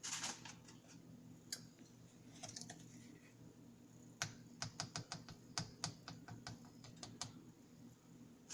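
Coffee beans clicking and rattling against a hand coffee mill: a short rush at the start, a few scattered clicks, then a run of sharp clicks at about four a second in the second half.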